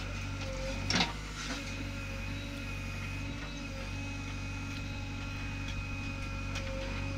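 JCB 3DX backhoe loader's diesel engine running steadily under load while the backhoe digs and swings soil, with a faint high whine over the drone. A single sharp knock about a second in.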